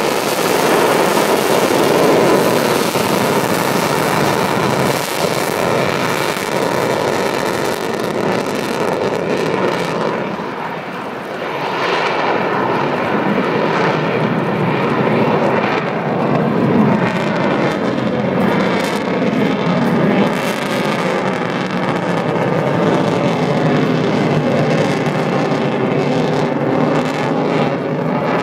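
Jet aircraft engine roar from a flying display, loud and sustained, easing briefly about ten seconds in before building again.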